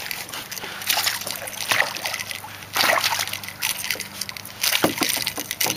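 A big hooked bass thrashing at the surface beside the boat, splashing water in several bursts about a second apart as it fights the line.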